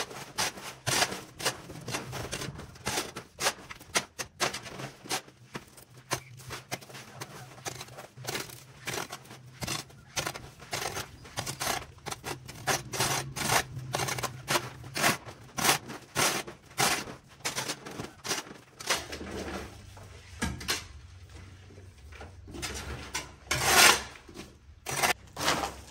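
Broom sweeping in quick, irregular scraping strokes, a couple or so a second, thinning out for a moment and then picking up with one louder stroke near the end.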